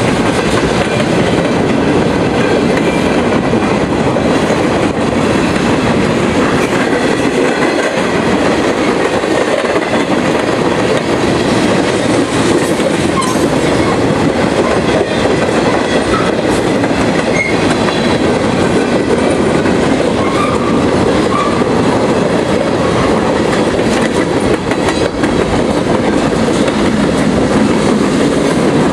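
CSX freight train cars rolling past at close range: a steady, loud rumble of steel wheels on the rails.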